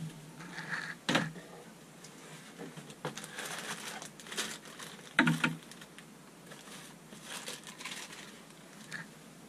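Plastic bag crinkling and rustling as shower head parts are handled, with a couple of sharper knocks, about a second in and around five seconds in.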